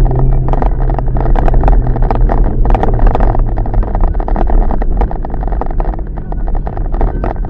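Car engine running with a steady hum that eases down in pitch about four seconds in, over low road rumble and frequent sharp clicks.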